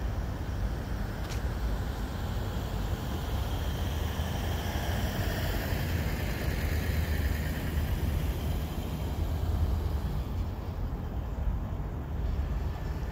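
Steady outdoor background noise with a low rumble and no clear single event.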